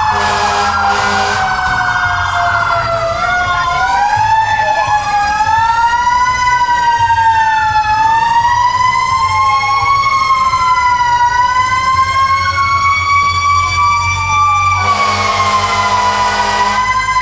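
Several fire engine sirens wailing at once, their pitches slowly rising and falling out of step with each other. A loud horn blast cuts in about a second in and again near the end.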